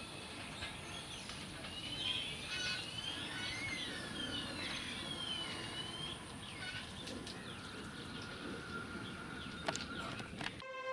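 Birds calling over steady outdoor background noise, with a run of swooping whistled calls that rise and fall in pitch in the middle. A couple of short clicks come near the end.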